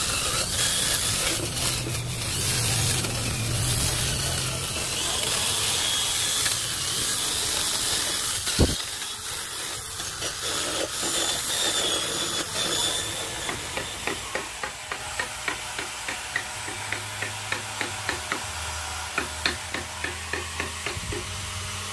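Power sanding of a carved wooden panel: a hand-held rotary sander running against the wood with a steady abrasive hiss, and a single sharp knock about midway. In the last third the sanding gives way to a brush stroking finish onto the wood, a regular swish about two to three times a second.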